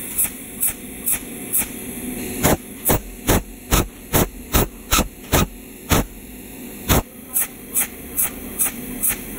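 Cold welding machine pulsing at the torch tip as it lays a weld bead on thin metal: sharp regular clicks, about two to three a second with a couple of short pauses, over a steady electrical hum.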